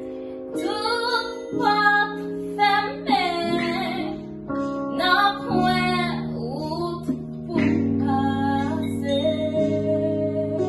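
A woman singing a slow song, accompanied by an electronic keyboard playing held chords that change every couple of seconds.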